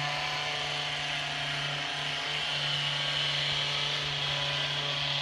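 Handheld high-speed vibration therapy instrument running with a steady electric motor hum as it is worked over the calf muscle, wavering slightly about two seconds in.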